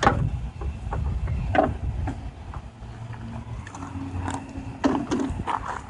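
Irregular clicks and knocks of car parts and hand tools being handled, over a low steady rumble.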